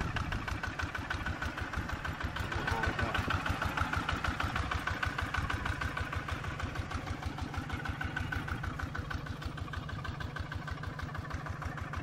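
Small single-cylinder diesel engine on a homemade mini tractor chugging steadily with an even, rapid beat, working under load as the tractor pulls a disc plough through the soil.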